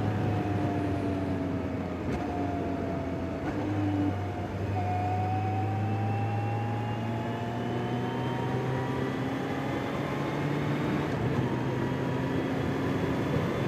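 Kawasaki Z H2 SE's supercharged inline-four on its stock exhaust at a steady cruise: a quiet, even engine hum under wind and road noise. Its pitch dips about four seconds in, then rises slowly as the bike gently gathers speed.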